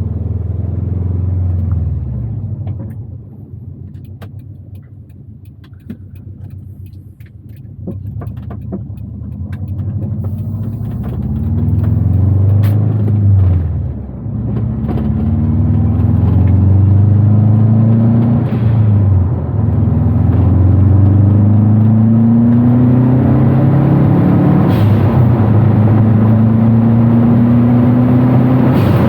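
Subaru Forester's flat-four engine pulling the car up through the gears: the engine note climbs steadily, then drops at each shift, three or four times, and grows louder as it goes. The engine runs cleanly under load, just after its MAP sensor fault was fixed.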